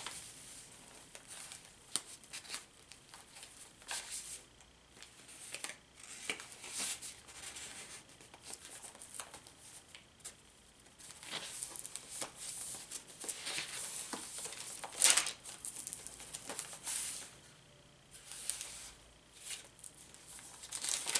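Paper pages and glued-in papers of a handmade junk journal being handled and turned: intermittent rustling and crinkling, with one sharp click about fifteen seconds in.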